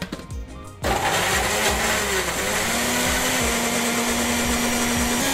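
Countertop blender switched on about a second in and running steadily at full speed, grinding raw shallots, garlic and spice roots with water into a wet paste. Its motor tone shifts briefly a second or so after starting, then holds level.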